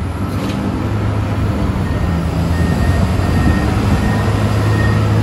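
Konecranes reach stacker's diesel engine running under load as its hydraulic boom lifts: a steady low drone that grows slowly louder. A faint, high, steady whine joins it about two seconds in.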